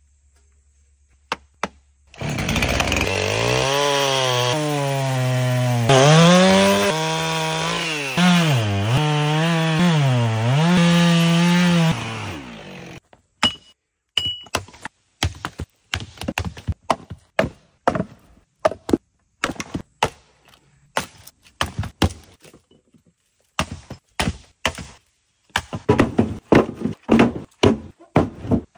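Husqvarna chainsaw running for about ten seconds, its pitch dropping and climbing back again and again as it bogs in the cut and revs up, then cutting off. After it stops, a long series of sharp wooden knocks and thunks, coming faster near the end.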